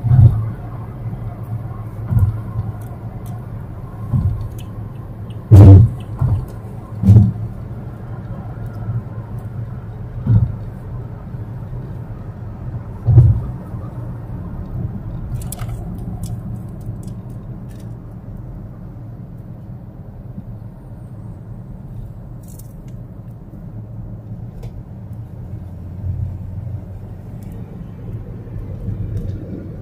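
Steady low road and engine rumble inside a moving Toyota car's cabin, with a run of short, dull thumps through the first half, the loudest about six seconds in.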